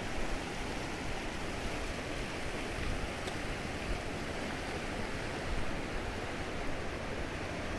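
Fast, muddy river rushing through rapids: a steady, even rush of turbulent water.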